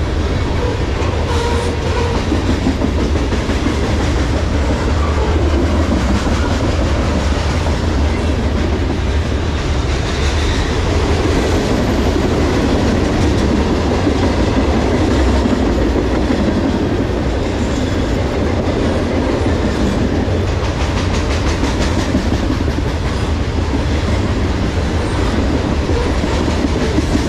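Freight cars of a long manifest train rolling past at about 36 mph: a steady, loud rumble of steel wheels on rail with clatter from the trucks and couplers.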